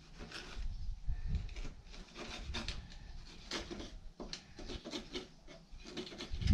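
Utility knife scraping at the worn carpet lining a wooden box in short, irregular strokes, with a few dull knocks, the loudest at the very end.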